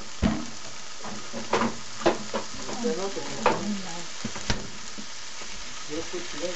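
Pork belly slices and green pepper strips sizzling in a frying pan, a steady hiss broken by several sharp pops.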